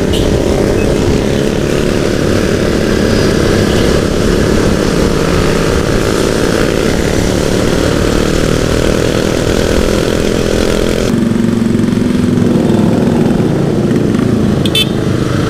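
Motorcycle engine running while riding, heard under wind rushing over the camera's microphone. About eleven seconds in, the wind noise drops away and a steadier, lower engine hum comes through. A brief click near the end.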